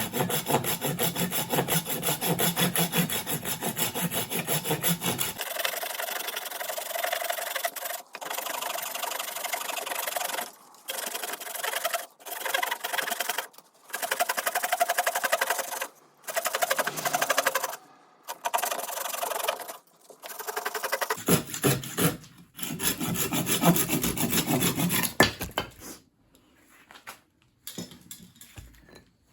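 Blade shaving hard, resinous fatwood in quick rasping strokes. The strokes come in runs broken by short pauses and turn faint near the end.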